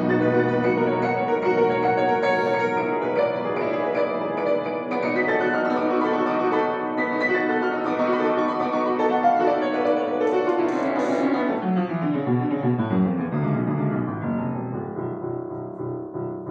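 Upright piano played by hand. About ten seconds in, a run steps down into the bass and ends on a held low chord, which is released near the end.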